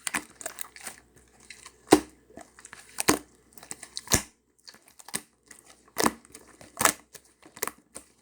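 Slime being pressed and worked by hand, giving irregular sharp pops and crackling clicks, a few loud ones with softer crinkles between.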